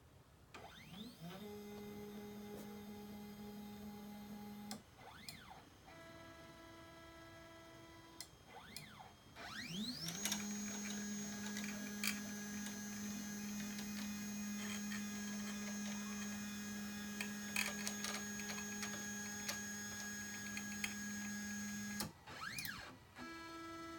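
3018 CNC engraver's stepper motors whining through a homing cycle, the axes moving to their homing limit switches one move at a time. Each move starts with a quick rising whine as the motor speeds up, holds a steady pitch, then stops abruptly. The moves come at several different pitches, with the longest, loudest one running from about ten seconds in to about twenty-two.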